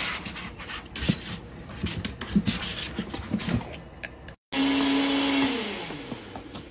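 Irregular clicks, knocks and scratches as a kitten clambers on plastic cat-litter jugs. After a short break, the loudest sound is a steady electric-motor hum, like a vacuum cleaner or blender, that then winds down, falling in pitch and fading.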